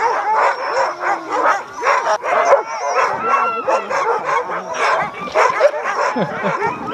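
Many sled dogs barking, yipping and howling together in a loud, continuous chorus of overlapping calls, the excited clamour of a team setting off on a run.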